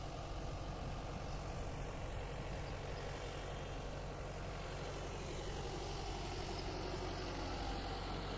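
An engine idling steadily with a low, even hum that does not change speed.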